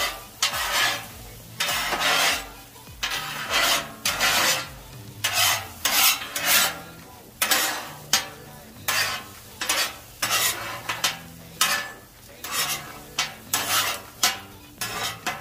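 Metal spatulas scraping and chopping across a steel flat-top griddle, mixing egg into crumbled meat and potatoes in quick repeated strokes, about one to two a second. The eggs sizzle under the scraping.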